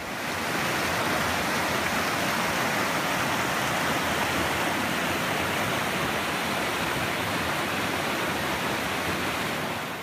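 River rapids: white water rushing steadily over rocks, a dense even rush with no pauses.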